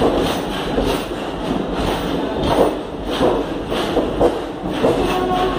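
ICF passenger coaches rolling slowly past, their wheels knocking over rail joints in a repeated clatter of thumps, about two a second, over the steady rumble of the moving train.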